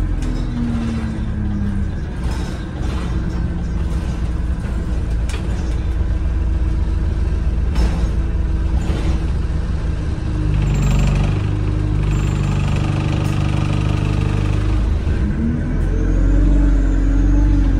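Interior drone of an Alexander Dennis Enviro200 single-deck bus's diesel engine and driveline while it drives. The engine note drops early on, holds fairly steady, and rises again near the end as the bus picks up speed, with occasional rattles and knocks from the body.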